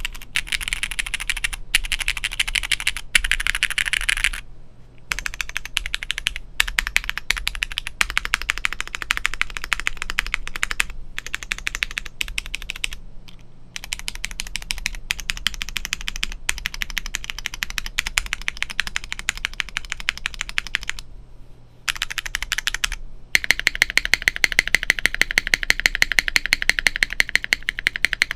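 Typing on a plateless, gasket-mounted custom HHKB-layout keyboard with no foam, fitted with Cherry MX Black clear-top linear switches and GMK Dracula keycaps: a steady stream of keystrokes broken by a few short pauses. Near the end it turns into a faster, very even run of strokes.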